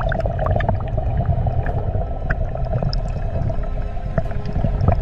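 Churning, gurgling water with a deep continuous rumble and a steady droning hum, dotted with small clicks and splashes.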